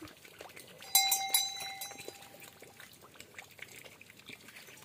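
Cattle bell clanking in a quick run of strikes about a second in, each leaving a ringing tone that fades, then a few fainter clinks.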